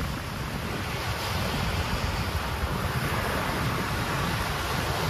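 Steady wind buffeting the microphone: a continuous rushing noise with a heavy low rumble and no separate events.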